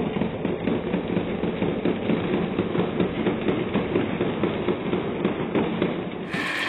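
Marbles rolling down a wooden wavy-groove slope and clattering into the plastic bed of a toy dump truck: a rapid, continuous rattle of clicks and clacks. It stops near the end, where a short bright hiss takes over.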